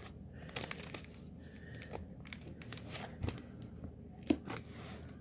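Soft crinkling and rustling of a wrapper or bag while cream cheese is cut with a knife, with scattered light clicks and taps and one louder tap about four seconds in.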